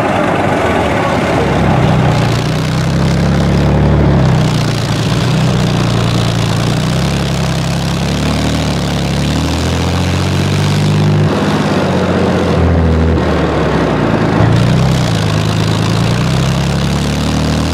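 Diesel engine of a BMP tracked infantry fighting vehicle running as it drives over a dirt track. The engine note rises and falls a few times.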